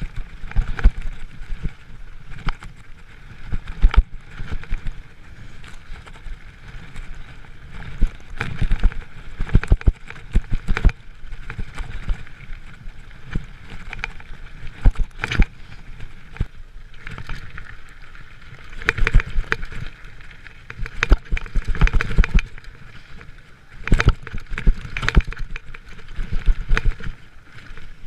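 Giant mountain bike riding fast down a dirt trail: tyres rumbling over the ground with frequent sharp knocks and rattles as the bike hits bumps.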